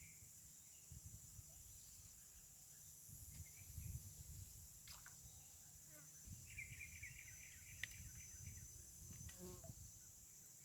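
Faint steady high-pitched drone of insects, with a brief chirping trill a little past the middle and faint low rumbles of handling.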